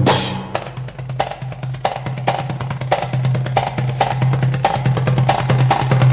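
Belly-dance music with a fast, busy percussion rhythm of sharp strikes over a steady low bass note.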